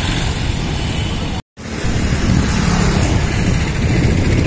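Night road traffic: a steady rumble of engines and tyres from crowded, moving vehicles. The sound drops out completely for a moment about a second and a half in, then the traffic noise carries on.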